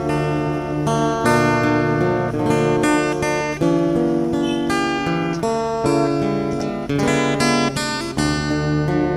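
Background music: an acoustic guitar plays plucked notes and chords at a steady tempo.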